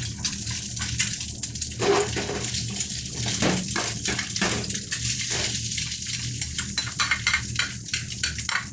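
Egg sizzling and crackling in a pool of hot oil in a wok while it is stirred with a ladle, a continuous hiss full of small pops.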